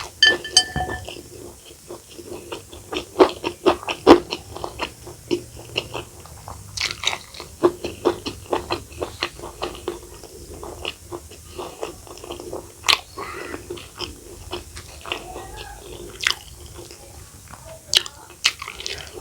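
A person eating close to the microphone: crunchy bites and chewing, many irregular sharp crunches and mouth clicks.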